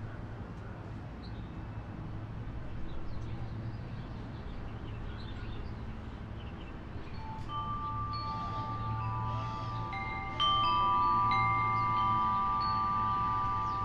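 Wind chime starting to ring about halfway through: several clear tones sustain and overlap, with a louder strike a little later. A low steady rumble runs underneath.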